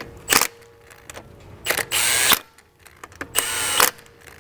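Milwaukee Fuel cordless impact wrench spinning wheel lug bolts in and snugging them, in three bursts: a short blip, then two runs of about half a second each. Each run is a whirring whine with hammering.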